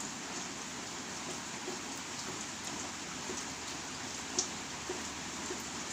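Steady rain falling, with a few sharper drops or drips standing out, the clearest about four and a half seconds in.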